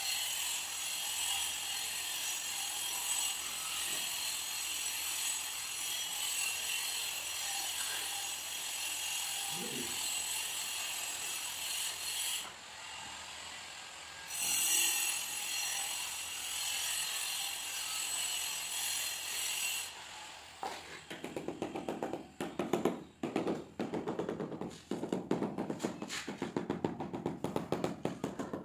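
A steady hiss for most of the time, then, starting about two-thirds of the way in, a rubber mallet tapping a marble border strip down into its mortar bed in quick runs of taps.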